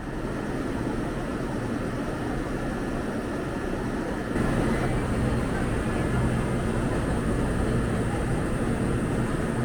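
Steady rumble of a Kintetsu train running, with no distinct beat, growing a little louder about four seconds in.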